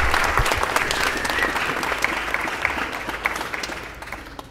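Audience applauding, the clapping fading steadily and dying away near the end.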